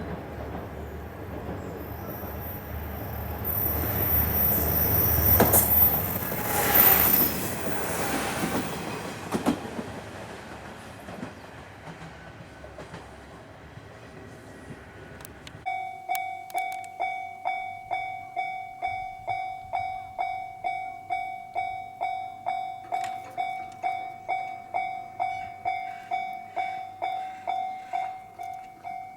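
Train passing over a level crossing, loudest about five to seven seconds in, with a thin high wheel squeal, then fading away. About sixteen seconds in, a Japanese level-crossing alarm starts ringing, an even ding-ding at about two strikes a second.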